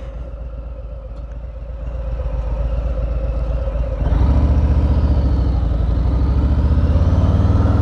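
Harley-Davidson Street Bob's V-twin engine under way at low revs, then opened up about halfway through and pulling harder, its pitch rising gently toward the end.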